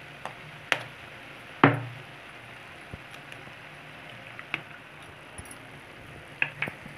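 An egg being cracked into a metal kadai of cooked greens: a sharp knock on the metal a little over a second and a half in, then a few light clicks as the shell is pulled apart and the egg drops in. A steady low hiss from the pan runs underneath.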